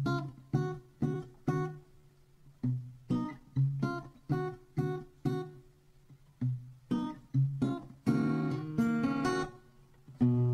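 Acoustic guitar playing a slow intro of picked notes and chords, about two a second, each ringing and fading, with short pauses between phrases. Fuller strummed chords come in near the end.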